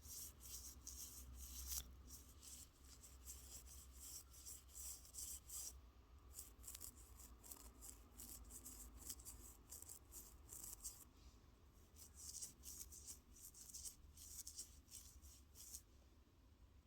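Toothbrush bristles scrubbing in quick back-and-forth strokes, faint and scratchy, with short pauses about six and eleven seconds in.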